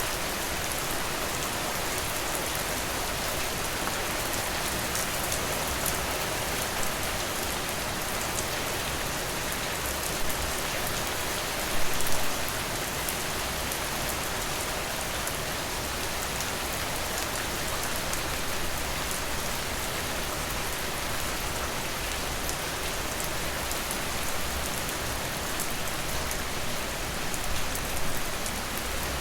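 Steady rain falling, with a few brief louder spatters about ten and twelve seconds in and again near the end.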